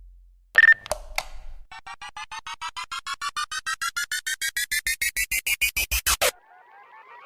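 Electronic synth sound effects: three sharp hits, then a rapidly pulsing riser that climbs steadily in pitch and cuts off suddenly, followed near the end by a second pulsing sweep starting to rise.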